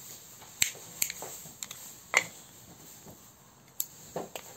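Small hard plastic parts of a wind-up toy train clicking and tapping as they are handled and pressed together: about eight sharp clicks at uneven intervals, the loudest about two seconds in.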